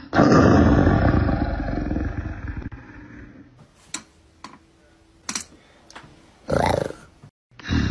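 Big-cat roar played as a sound clip: a loud, rough roar that fades away over about two and a half seconds, followed by a few faint clicks and a short rough sound near the end.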